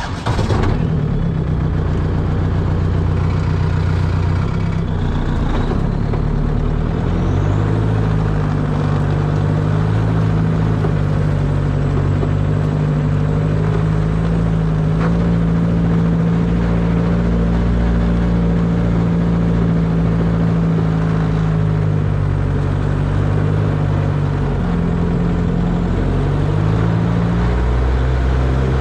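1949 Willys CJ3A Jeep's four-cylinder flathead Go-Devil engine running while driving, its engine speed rising and falling a few times.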